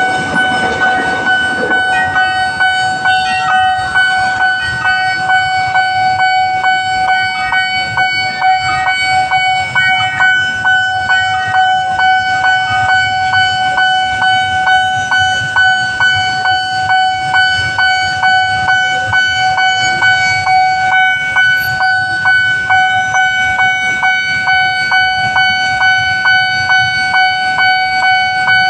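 Railway level-crossing warning alarm sounding: a steady high electronic tone pulsed by a regular beat about twice a second. The rumble of a passing train dies away in the first two seconds.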